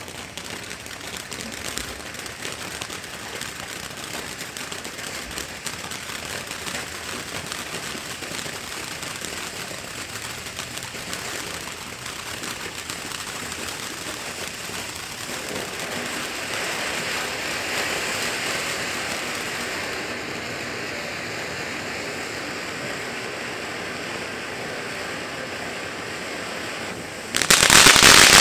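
Great Grizzly Sensational Sunflower firework fountain burning: a steady rushing hiss of sparks with crackling, which changes character about halfway through. Near the end it turns abruptly much louder, with dense crackling.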